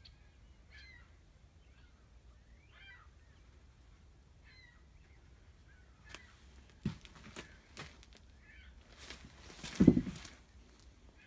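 Canada geese honking faintly now and then in the distance. A few sharp knocks come later, then one loud thump near the end, from moving through the fallen boards and junk.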